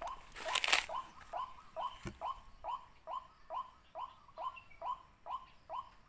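White-breasted waterhen calling: a steady, monotonous run of short upward-hooked 'ruak' notes, a little over two a second. A brief burst of rustling comes about half a second in, and a sharp click about two seconds in.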